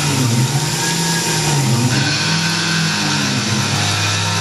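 Tormach PCNC 1100 CNC mill milling a counterbore hole in a fixture plate under flood coolant. Over a steady machine hum, a tone swoops up and down again and again, about once a second, as the end mill circles the hole.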